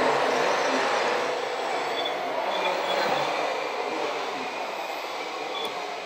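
Radio-controlled model wheel loader running as it crawls over loose dirt: a steady mechanical whirring of its drive and hydraulics, gradually getting quieter.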